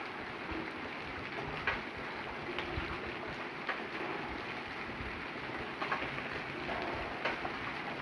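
Steady rain falling, an even hiss with a few sharper drop hits scattered through it.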